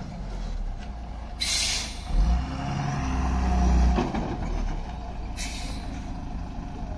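Heavy truck engine running and revving harder for a couple of seconds in the middle, with two short air-brake hisses, about a second and a half in and again about five and a half seconds in.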